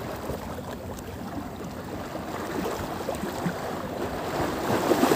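Steady wind buffeting the microphone over open water, with water lapping.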